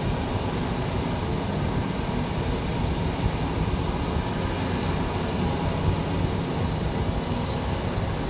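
Diesel engines of heavy excavators running: a steady low rumble with no distinct clanks or impacts.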